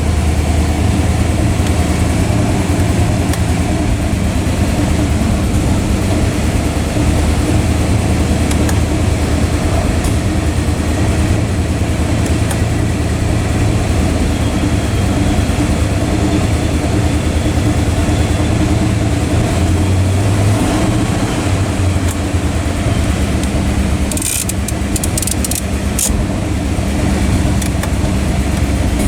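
1959 Chrysler 300E's 413 V8 idling steadily, with a few light clicks about three-quarters of the way through.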